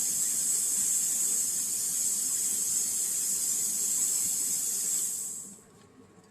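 Plasma cutting torch on a CNC table hissing steadily, cutting off about five and a half seconds in.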